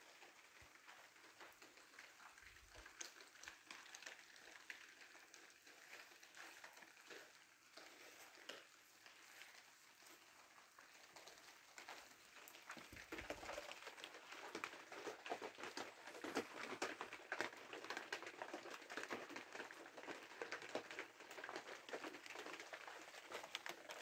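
Rain falling, a dense patter of many small drops that grows louder a little past halfway.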